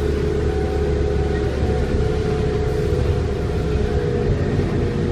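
Interior of a 1995 New Flyer D40LF transit bus under way: its Detroit Diesel Series 50 engine and drivetrain running with a steady low rumble and a steady whine.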